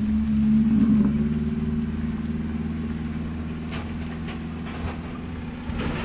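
MAN TGS 40.440 6x6 tractor unit's inline-six diesel engine running under the load of a lowboy carrying a 50-ton excavator, a steady drone that slowly fades as the truck moves away. A few light clicks in the second half.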